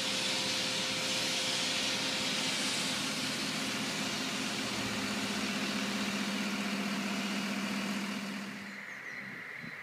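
Diesel engine of a Liebherr mobile crane running steadily, a hum under a hissing rush, fading near the end.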